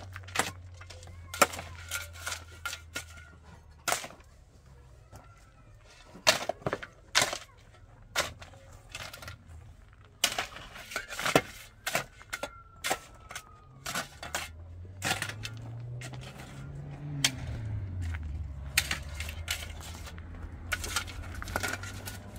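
Shovel blade digging and scraping into stony, gravelly dirt: a run of sharp, irregular scrapes and strikes.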